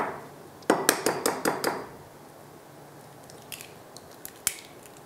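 An egg being cracked and separated by hand: a quick run of sharp cracking clicks from the shell about a second in, then a few fainter clicks as the shell halves touch while the yolk is passed between them.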